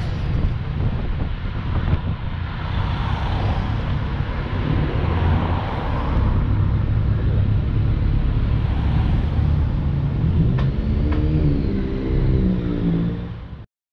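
Low, uneven rumble of road vehicles. Near the end an engine note wavers up and down, then the sound cuts off suddenly.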